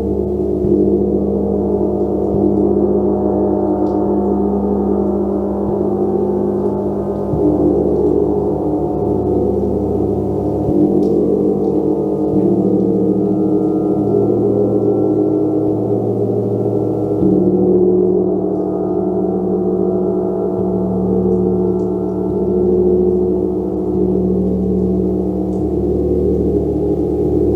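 Gong played continuously, a loud sustained wash of many overlapping low tones that shifts every few seconds as it is struck again.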